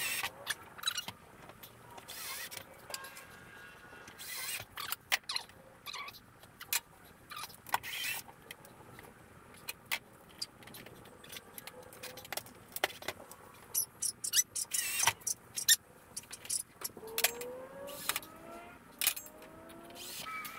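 Cordless drill driving screws in short runs, its motor whine rising in pitch as it speeds up near the end, among frequent knocks and clicks from handling plastic parts-drawer cabinets against a plywood board.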